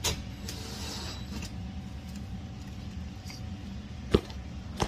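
Plastic clicks and knocks from handling a Honeywell T4 thermostat's wall plate and wiring cover, with a sharp click about four seconds in and another near the end, over a steady low hum.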